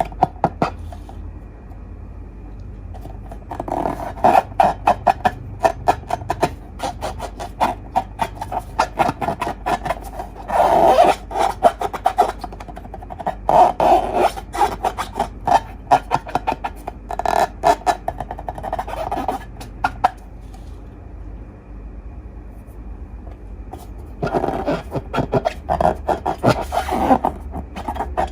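Slime and rubber balloons being squeezed and handled, making bursts of sticky crackling clicks and rubbing. The bursts come in clusters, with a quieter stretch between them about two-thirds of the way through.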